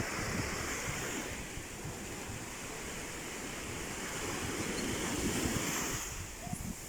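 Sea waves washing onto a shore: a continuous surf wash that swells at the start and again about five seconds in.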